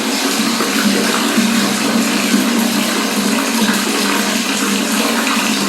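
Tap water running steadily at full flow, filling a bath.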